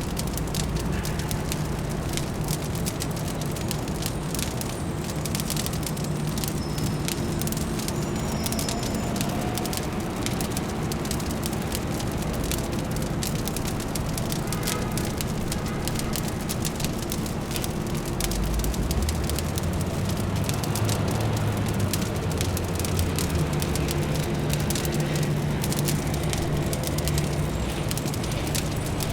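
Fireplace fire crackling with a constant stream of small pops over a low, steady city hum; the low rumble swells for a few seconds about two-thirds of the way through.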